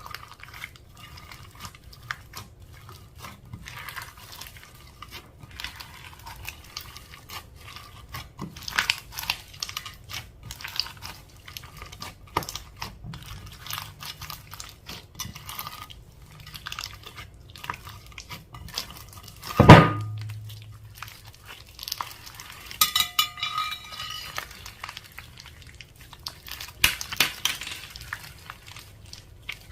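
Slime being stirred and mixed in a bowl with a utensil: soft sticky crackles and clicks, and the tool scraping and tapping the bowl, with one loud knock about two-thirds of the way through.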